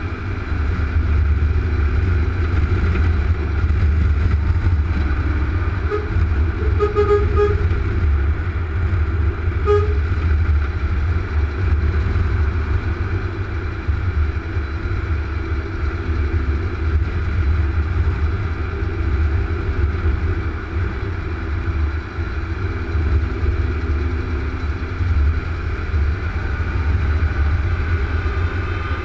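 Steady low drone of a truck cruising at motorway speed, heard from inside the cab, with a few short vehicle-horn toots about six to seven seconds in and again near ten seconds.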